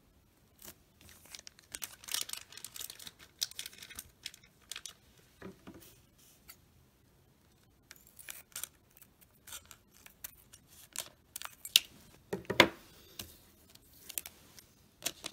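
A foil trading-card pack crinkling as it is handled and snipped open with scissors, with sharp clicks and a louder knock about twelve seconds in.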